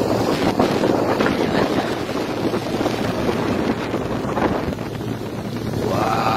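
Wind buffeting the microphone over the steady noise of a motorized river boat under way, with water rushing past. A brief pitched sound, like a voice, comes near the end.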